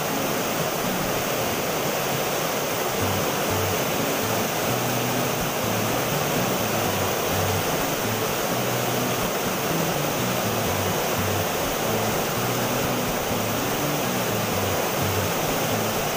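River water rushing steadily over a rocky cascade, with background music and its low notes underneath.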